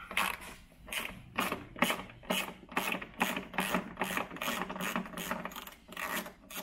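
Hand socket ratchet clicking as it undoes a coarse-threaded bolt from a plastic headlamp housing, in short even strokes about two a second.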